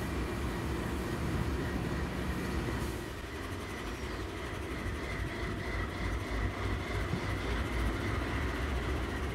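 CN diesel locomotives, a three-unit helper set, running past in a steady low engine drone with rail noise. The sound drops slightly and changes character about three seconds in.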